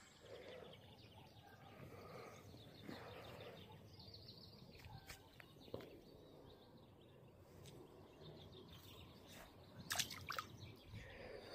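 Faint handling noise from gloved hands unhooking a small perch by the water, with a few sharp clicks about ten seconds in.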